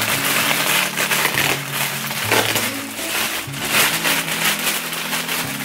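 Plastic packaging crinkling and rustling as it is opened, over background music with a steady bass line.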